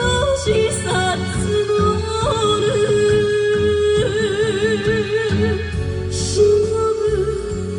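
A slow Japanese enka-style ballad: a sung melody holds long notes with a wide, wavering vibrato over a full band accompaniment.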